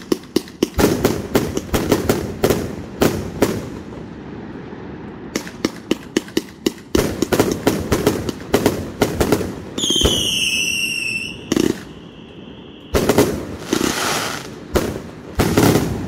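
A 132-shot firework cake firing: rapid volleys of sharp bangs and crackle with short lulls, a falling whistle about ten seconds in, and heavy bursts near the end.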